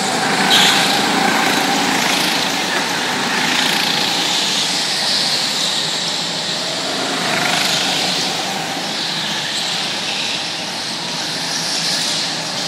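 Small go-kart engines running as karts lap a track, a steady drone that swells and fades as karts pass by.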